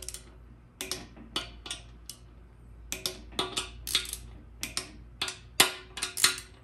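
Torque wrench and socket on the bolts of a 48RE overdrive piston housing: a run of sharp metallic clicks and clinks, irregularly spaced and some in quick pairs, as each bolt is checked at its 13 ft-lb spec.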